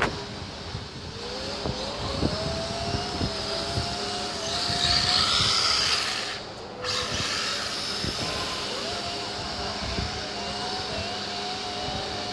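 Radio-controlled buggy's motor revving up into a high, wavering whine as the car runs across concrete, twice: once in the first half and again near the end. A louder hissing noise swells in the middle, with scattered light knocks throughout.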